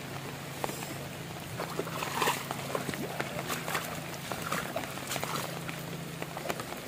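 Heavy rain falling on muddy standing water and wet grass: a steady hiss full of scattered drop ticks and small splashes, with one louder splash about two seconds in.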